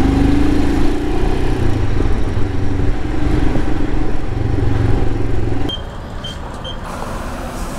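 Royal Enfield Himalayan's single-cylinder engine running under way, a steady low rumble whose pitch eases down slightly. About six seconds in it gives way to quieter surroundings with three short high beeps from a digital tyre-inflator's keypad.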